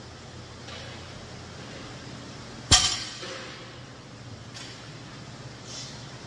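Rubber-coated barbell plates knocking sharply once onto a lifting platform as a deadlift rep touches down about three seconds in, with small clinks of the plates on the bar later on. A steady hum runs underneath.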